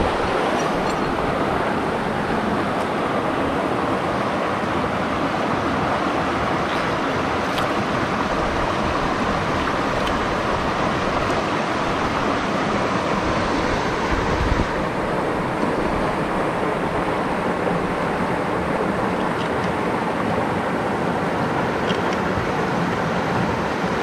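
Mountain stream water rushing steadily in a constant, unbroken noise.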